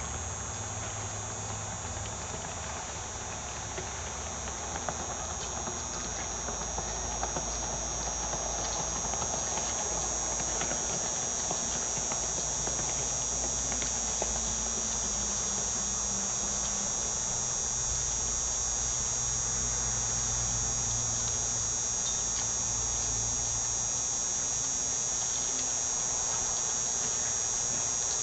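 Yamaha FX HO Cruiser jet ski running at high speed far out on the water, heard as a steady high buzzing whine over a low rumble.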